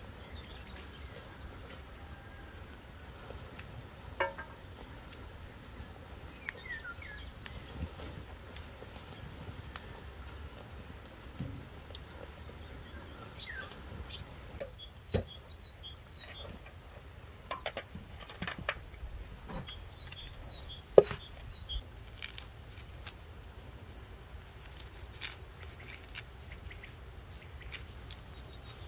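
Insects trilling steadily on one high note, with scattered light clicks and taps and one sharper click about two-thirds through.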